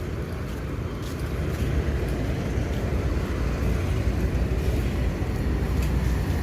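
Steady low rumble of outdoor background noise, with an even hiss above it.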